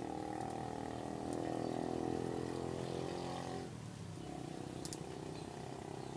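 A small motor running with a steady low drone; it drops slightly in level and changes tone a little past the middle. A pair of sharp clicks comes near the end.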